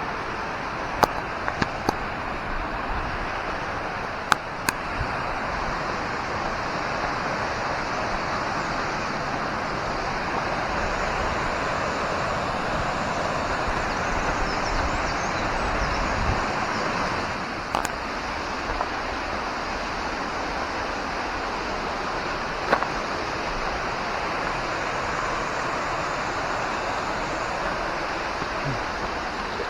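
A waterfall's steady rush of falling water, an even hiss-like roar with no change in pitch, with a few sharp clicks in the first five seconds and once more a little past the middle.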